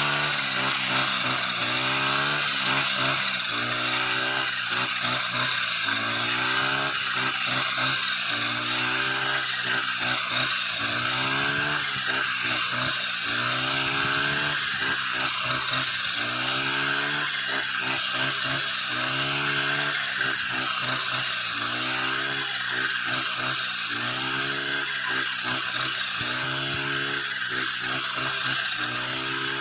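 Petrol brush cutter running hard while cutting rice stalks. Its engine pitch climbs and drops back about every second and a half as the blade bites into each swath and recovers.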